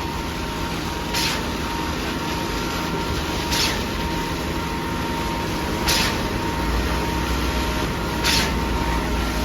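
Concrete pump truck running steadily, with a short hiss about every two and a half seconds, four times, as the pump strokes push the concrete mix through.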